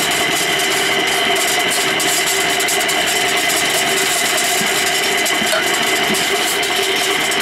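Small drum concrete mixer running steadily, its motor humming as the turning drum mixes mortar of sand, water and cement.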